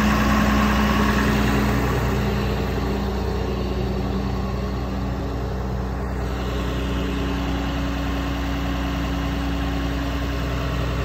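Flatbed tow truck's engine idling steadily: a low, even drone with a steady hum over it.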